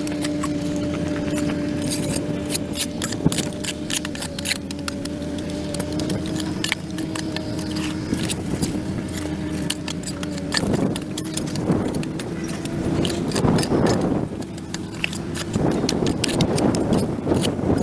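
Gritty scraping and clicking of a tool working dirt and debris across a concrete sidewalk, with heavier scraping strokes in the second half. A steady low hum runs underneath and stops near the end.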